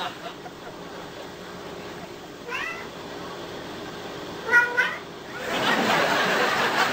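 A cat meowing twice, two short calls about two seconds apart, the second one louder. A broad murmur of background noise comes up near the end.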